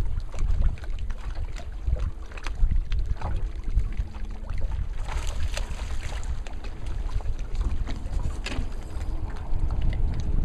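Wind buffeting the microphone in an uneven low rumble, with scattered light clicks and knocks and a brief rush of hiss about halfway through.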